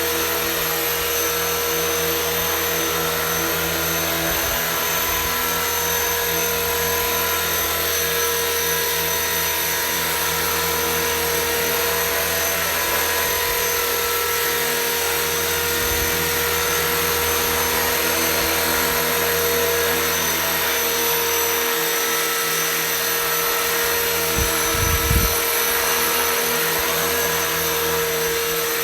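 450-size radio-controlled MD500E scale helicopter in flight: a steady, even whine of its electric motor and rotors. A brief low buffet of wind on the microphone comes near the end.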